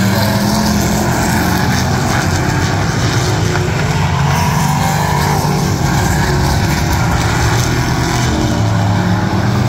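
Engines of several figure-eight stock race cars running at speed around the track, a loud continuous drone of overlapping engine notes.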